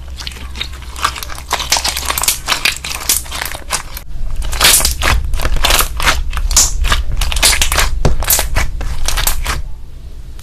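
Slime being squeezed and pressed by hand, giving dense crackling and popping. It gets louder about four seconds in and eases off near the end.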